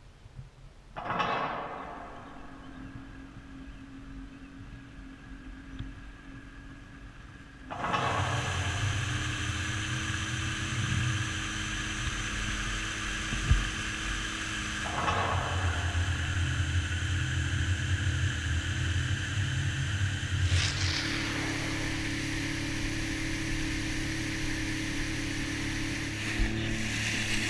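Jet ski engine starting about a second in and idling steadily, then throttled up at about eight seconds and running loud at speed across the water, surging again midway and dropping in revs for a moment near twenty seconds.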